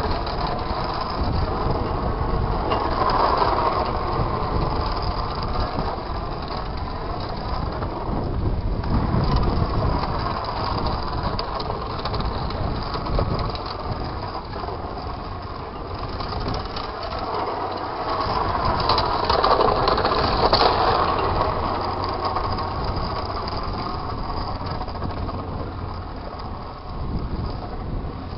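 A 12-lb combat robot's electric drive motors whining as it drives around on asphalt, with its wheels running over the rough surface. The whine rises and falls in pitch as it speeds up, slows and turns, growing loudest a few seconds in and again about two-thirds of the way through.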